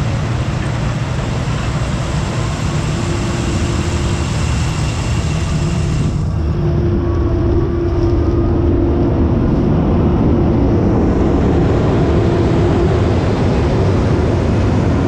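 Combine harvester running steadily under load while harvesting field corn: a continuous low engine drone with a steady hum. About six seconds in, the hissy upper part of the noise drops away abruptly and leaves the deeper drone.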